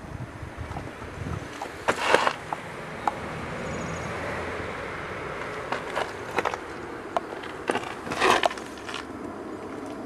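A mountain bike rolling over rough ground: steady tyre noise with scattered rattling clicks from the bike. Two louder, rougher jolts come about two seconds in and again near eight seconds.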